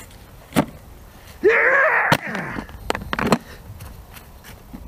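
A hard plastic tackle box, a Legend Fishing Gear box under crash test, is slammed down onto the ground. A loud strained grunt with a rising pitch comes about one and a half seconds in, then one sharp crack of impact, then a few lighter knocks as the box and its contents settle.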